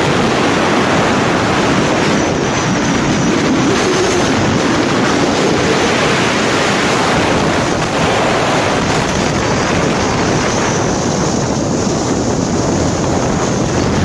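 Steady rush of wind buffeting the camera microphone on a moving motorbike.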